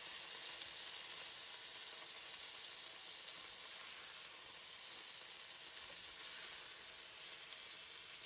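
Floured cube steaks frying in avocado oil in a braising pan, a steady sizzle as the meat browns.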